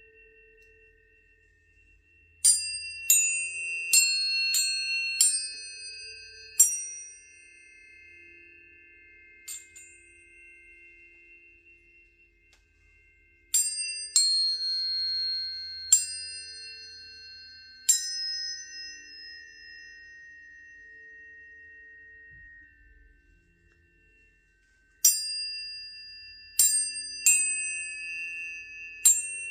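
Tuning forks struck one after another, each strike a bright clang that fades quickly into a long, steady ringing tone, with several tones overlapping. The strikes come in clusters: about six in the first few seconds, four around the middle, and four near the end.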